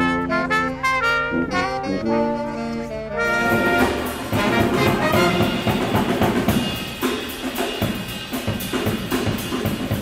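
Brass band playing: horns hold a run of clear notes, then drums and cymbals come in with the full band about three seconds in.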